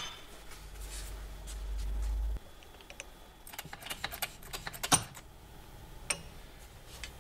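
Light metallic clicks and taps as a starter motor's aluminium end housing is handled and set on a press bed under the ram, with a cluster of clicks in the middle and the loudest click near five seconds. A low hum in the first couple of seconds cuts off suddenly.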